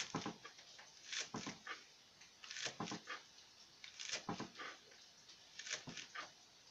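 Kitchen knife chopping green onions on a plastic cutting board: five short runs of quick taps with pauses between them.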